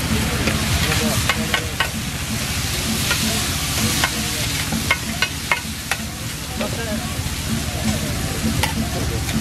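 Meat with onions and chillies sizzling on a large flat metal griddle while two metal spatulas stir and scrape it, with sharp clinks of metal on metal every second or so. A steady low hum runs underneath.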